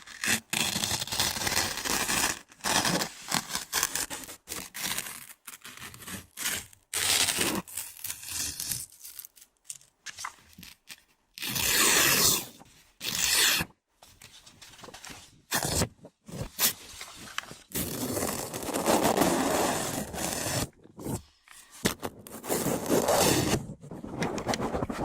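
Close-miked ASMR trigger sounds: irregular bursts of scraping and crinkling right against the microphone, broken by short pauses, harsh and noisy rather than soft.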